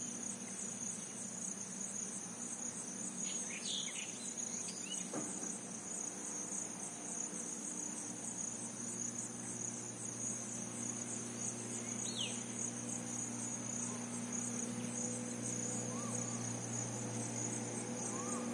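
Steady high-pitched insect chirring, finely pulsing without a break, over a low steady hum, with a few brief faint chirps about four and twelve seconds in.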